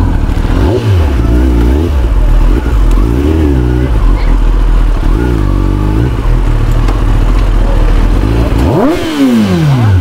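Kawasaki Ninja ZX-10R's inline-four running through an Akrapovic full-system exhaust, idling and revved in three short throttle blips. Near the end a sharp rev rises and falls away in a long drop in pitch.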